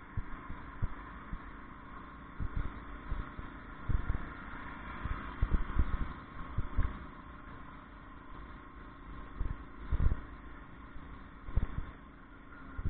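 Motorcycle riding along a road: steady engine and road noise, with irregular low thumps every second or two.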